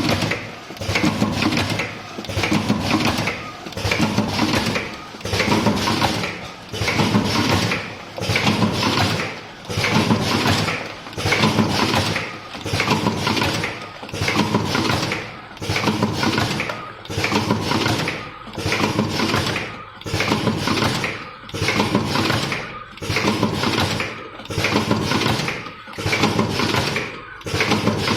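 Semi-automatic cartoning machine running, its clattering mechanical cycle repeating about every second and a half.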